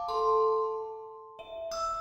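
Background music of gentle mallet-percussion notes, like a music box or glockenspiel, ringing out slowly one after another.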